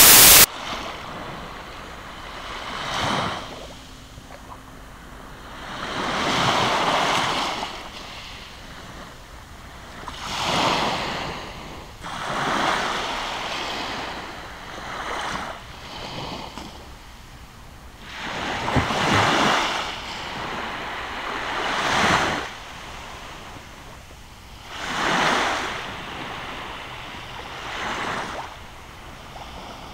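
Small waves washing onto a beach, the hiss rising and falling with each wave every three or four seconds. A loud hiss cuts off about half a second in.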